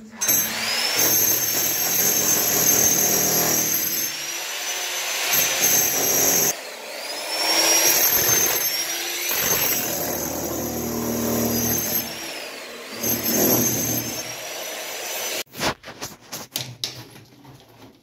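A power tool running against a concrete block wall, in long loud runs with short breaks, its high motor whine rising in pitch each time it spins back up. Near the end the tool stops and several sharp knocks follow.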